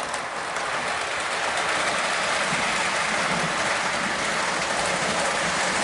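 O gauge model freight cars rolling along the layout's track: a steady rolling rumble with faint clicks from the wheels. It cuts off suddenly near the end.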